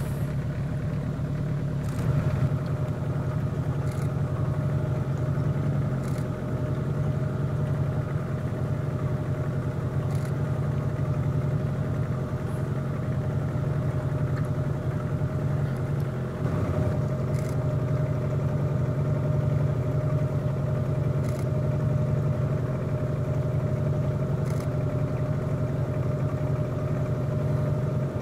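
Engine idling steadily with a low, even hum.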